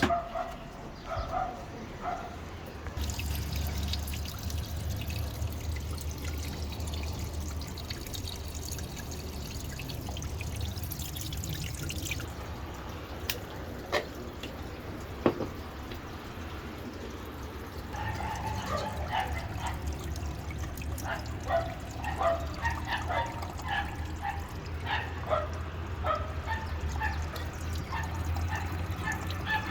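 Ramtons washing machine drain pump humming as water runs through it. The hum stops for several seconds midway, with a couple of sharp clicks, then starts again with scattered small knocks and clinks.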